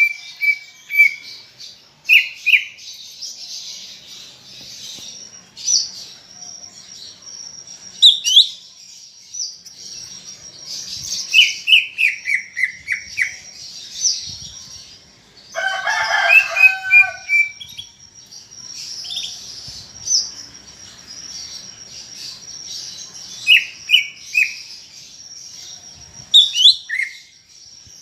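Greater green leafbird (cucak ijo) singing: quick runs of sharp, downward-sliding whistled chirps come again and again over a thin, high, almost continuous twittering trill. About halfway through, a harsher, lower call lasts about two seconds.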